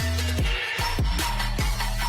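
Electronic background music with a deep, falling-pitch kick drum beat several times a second over a steady bass line.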